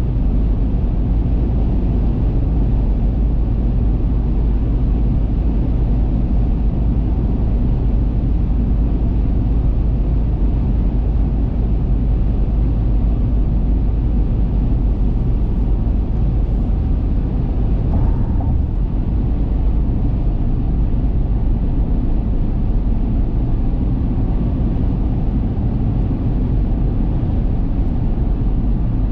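Steady low rumble of a car cruising at highway speed, tyre and road noise with engine hum, heard from inside the cabin.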